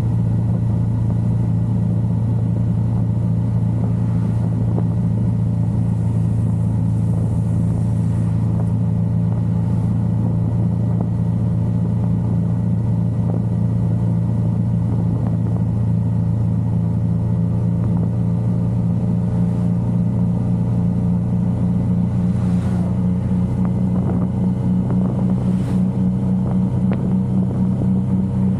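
Yamaha XSR900 motorcycle's inline three-cylinder engine running at steady revs while riding, its note rising slightly near the end.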